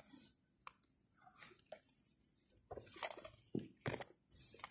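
Soft rustling of fabric and plastic being handled, with a few small clicks and knocks scattered through.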